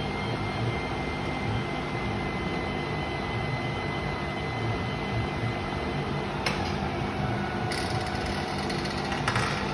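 Electric motor of a Bruno ASL 250 scooter lift running steadily with a faint whine as the platform moves the mobility scooter. A click comes about two-thirds through, and short rattles come near the end.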